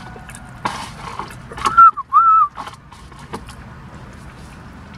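Two short, loud whistle-like squeaks about two seconds in, each rising and then falling in pitch, with small clicks and rustles of eating around them.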